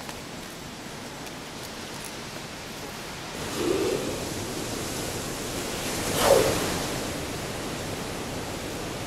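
Steady wash of surf, with two louder rushing swells, the first about three and a half seconds in and the second, louder one a little after six seconds.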